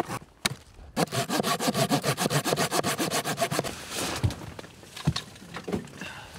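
A hand-held blade sawing through a dead stick in quick, even strokes, about seven a second, with a short break about a second in. After about four seconds the strokes stop and a few separate knocks of sticks being handled follow.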